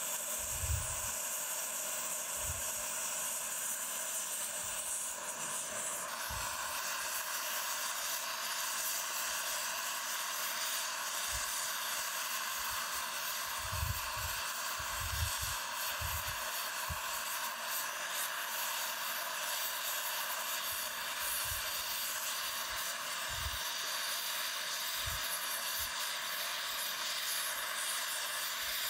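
Brazing torch flame hissing steadily on a cast-iron steam chest casting as the crack is filled with braze.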